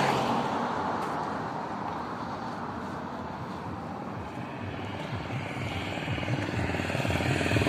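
Highway traffic noise: a steady rumble of passing vehicles that dips in the middle, then grows louder toward the end as a vehicle's engine approaches.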